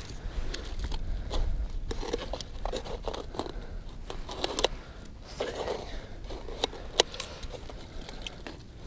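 Irregular small clicks, knocks and short scrapes of fishing gear being handled, with one sharper click about seven seconds in.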